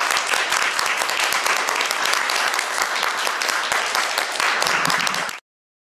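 Audience applauding: dense, steady clapping that cuts off abruptly about five seconds in.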